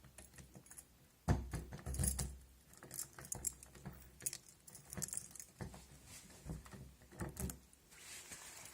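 A ring of keys jangling and clicking as it is handled, in irregular rattling clusters, the loudest about a second in.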